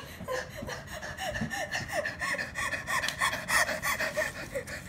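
A person laughing in quick, breathy gasps: a rapid run of short bursts of breath.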